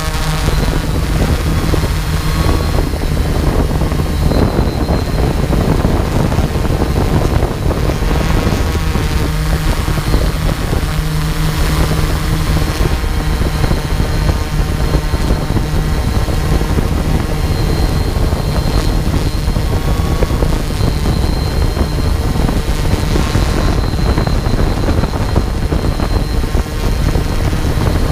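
Quadcopter drone's electric motors and propellers running, a steady buzzing drone with a slight shift in pitch now and then as it manoeuvres.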